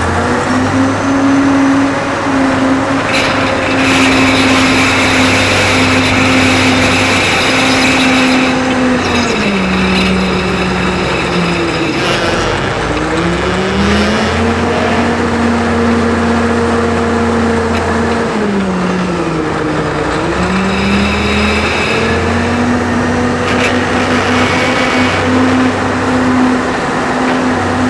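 CAT 988A wheel loader's diesel engine working under load. Its pitch drops and climbs back twice, about halfway through and again later, as the revs fall and rise. A brighter, higher sound rides over the engine for several seconds near the start and again near the end.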